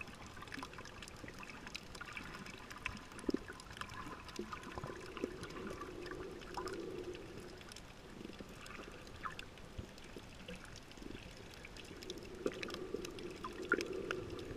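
Underwater sound picked up by a camera held below the surface: muffled sloshing and bubbling water with many scattered small clicks and crackles. The low sloshing swells louder twice, about midway and near the end.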